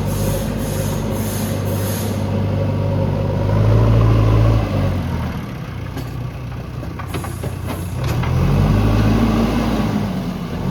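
JCB backhoe loader's diesel engine working, revving up under load twice, with a few sharp knocks in the quieter stretch between the revs.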